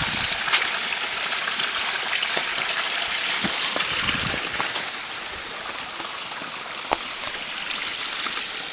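Small headwater stream running over stones and debris, a steady rush and trickle of water that eases slightly partway through. A single sharp knock near the end.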